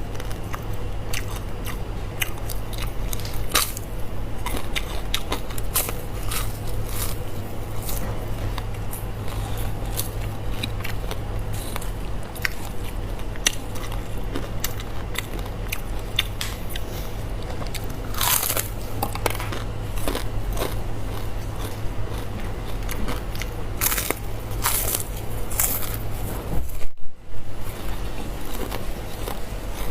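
Crisp bites and chewing of fried pork intestines, close to the microphone: a run of irregular crunches over a steady low hum, broken once by a short gap near the end.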